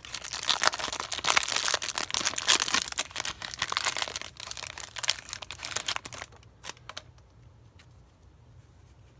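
Plastic wrapper of a pack of basketball trading cards crinkling and tearing as it is pulled open and off, stopping about six seconds in. A few light clicks follow as the cards are handled.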